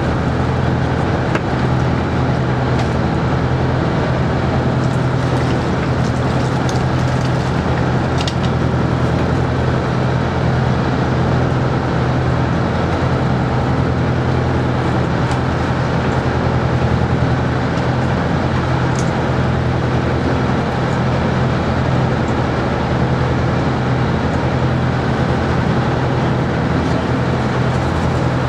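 Boat engine running steadily at an even pitch, with a broad rushing noise over it.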